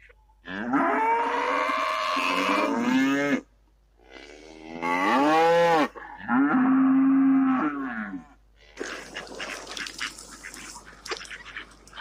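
Cattle mooing: three long, drawn-out calls, the middle one rising and falling in pitch and the last held at a steady pitch.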